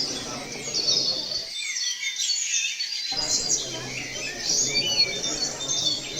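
A chorus of songbirds chirping and twittering, many short overlapping calls. The low background noise under the birds cuts out for about a second and a half near the middle.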